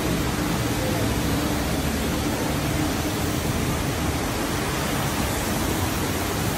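A loud, steady rushing hiss, even from low to high pitch, with a faint low hum underneath.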